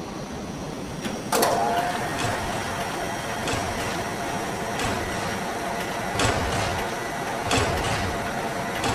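Mechanical sound effects for an animated machine: a steady whirring hum with a clack about every second and a half.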